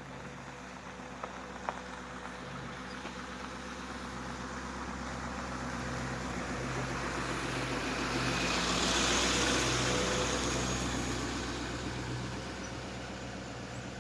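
A motor vehicle going by, its engine hum and tyre noise building slowly to a peak about two-thirds of the way through and then fading. Two faint sharp taps come early, about a second and a half in.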